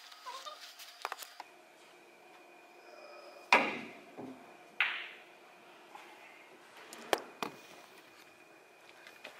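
Billiard balls on a pool table: a few sharp clacks from cue strikes and balls hitting each other and the cushions. The loudest comes about three and a half seconds in, another just under five seconds in, with lighter clicks about one second and seven seconds in.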